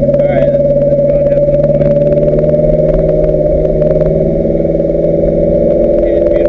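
Ferrari F430 GT race car's V8 running at low, steady revs, heard from inside the cockpit while the car rolls slowly.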